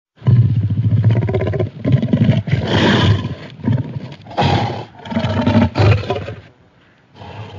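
Sound-effect roars of a Carcharodontosaurus dinosaur: about six deep roars and growls in quick succession with short breaks between them, trailing off quieter near the end.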